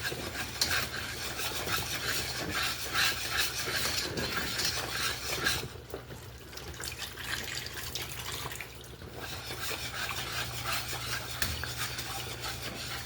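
A utensil stirring and scraping brown gravy in a frying pan, a scratchy run of small clicks against the pan, as the flour-and-beef-broth gravy thickens. The stirring briefly lets up about six and nine seconds in.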